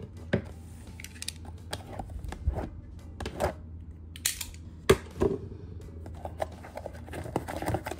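A cardboard trading-card blaster box being handled and opened by hand: scattered clicks, taps and short tearing and rustling sounds of the cardboard and packaging, the sharpest knock about five seconds in.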